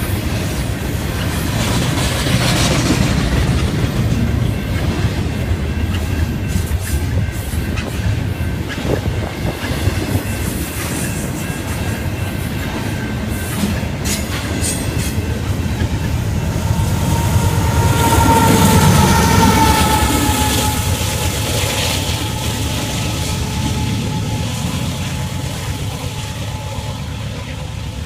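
Double-stack intermodal train rolling slowly past: a steady rumble of wheels on rail with clicks over the rail joints. Past the middle a high squeal sounds for a few seconds, falling slightly in pitch.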